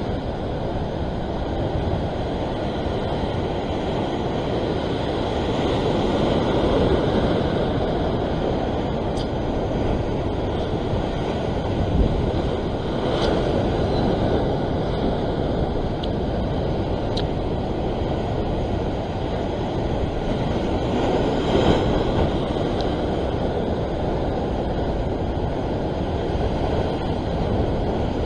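Heavy surf surging and washing over the rocks just below, a continuous low roar that swells every several seconds, with wind buffeting the microphone.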